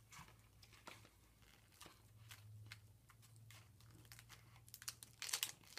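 Faint crinkling and clicking of a clear plastic egg-shaped case being handled and pried at, with a short burst of crackling near the end, over a low steady hum.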